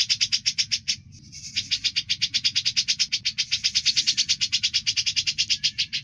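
Grey-cheeked bulbul (cucak jenggot) singing a fast, rattling 'ngebren' trill of even, harsh notes at about ten a second. It breaks off briefly about a second in, then runs on.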